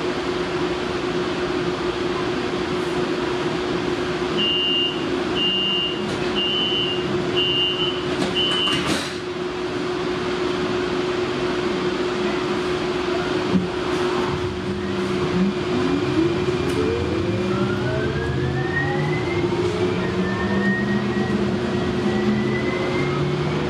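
Inside a Siemens S70 light rail car with a steady hum: the door chime beeps five times, a thump follows as the doors close, and then the electric traction motors whine, rising steadily in pitch as the train pulls away from the station.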